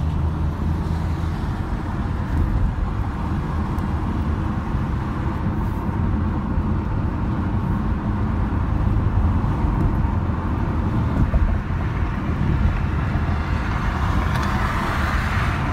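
Steady road and engine noise heard inside a car's cabin while driving onto a highway, growing a little brighter near the end.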